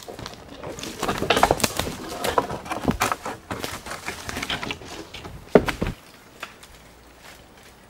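Dry dead branches clattering, cracking and scraping as they are handled and dragged over dry leaf litter, with one sharp snap about five and a half seconds in. It goes quiet after about six seconds.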